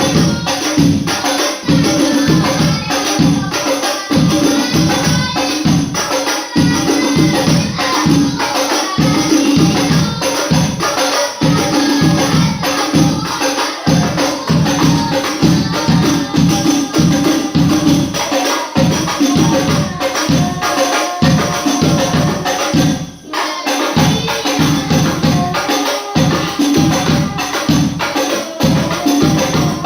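Sholawat music: rebana frame drums beating a steady, fast rhythm with tambourine jingles, under wavering sung melody. The playing drops out briefly a little past the middle, then carries on.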